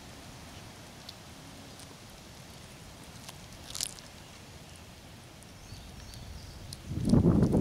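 Cat chewing a dead chipmunk: a few faint, sharp crunches and clicks, the clearest about four seconds in. Near the end a loud low rumble sets in.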